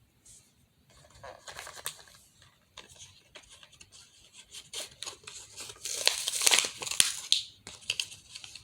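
Crinkling, rustling and crackling of packaging being handled, with scattered clicks, loudest about six to seven seconds in.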